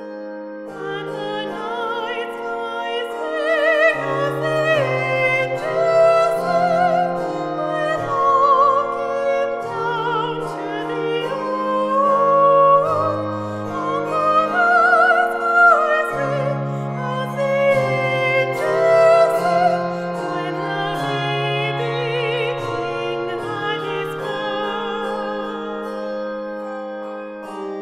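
Handbell choir ringing sustained chords under a female vocal soloist singing the carol melody with vibrato. The music swells to its loudest through the middle, then eases into softer ringing bell figures near the end.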